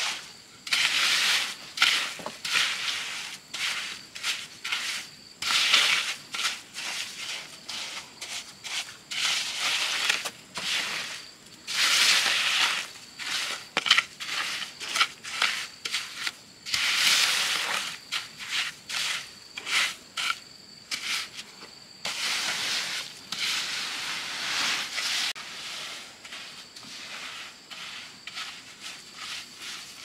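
Sand and cement being worked with hand tools: repeated irregular gritty scraping and crunching strokes, each under a second long.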